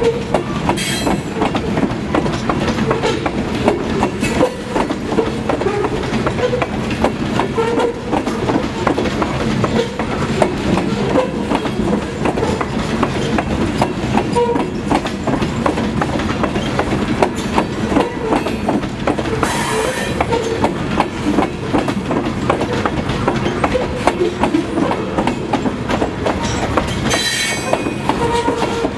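Grain-loaded CSX covered hopper cars rolling past, a steady rumble of wheels on rail with a rapid clacking over the rail joints. Brief high wheel squeals cut in about a second in, around twenty seconds in and again near the end as the cars take the curve.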